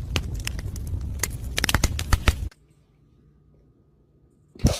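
Rapid irregular clicks and knocks over a low rumble, which cut off abruptly about halfway through. Near silence follows, broken by one sharp knock near the end.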